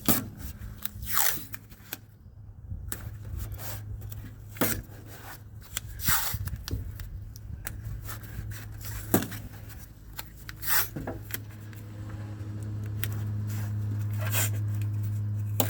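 Masking tape being pulled off the roll and torn in short, irregular rips and scrapes. A steady low hum runs underneath and grows louder near the end.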